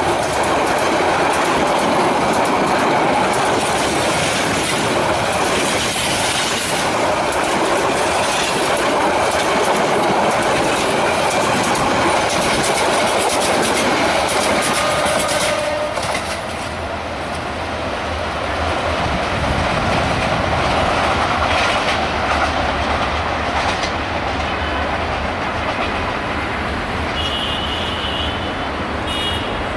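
Passenger train coaches passing close by at speed, with steady loud rushing and wheels clattering over the rail joints. About halfway through, the sound turns to a duller, lower rumble of a train further off, with a few brief high squeaks near the end.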